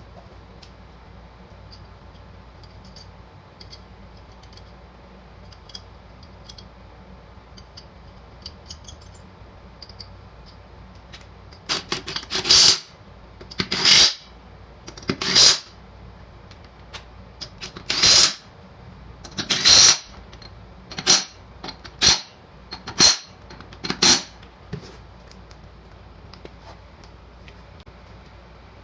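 Impact wrench fired in about nine short rattling bursts, a second or two apart, running lug nuts on or off a mower wheel during a tire change.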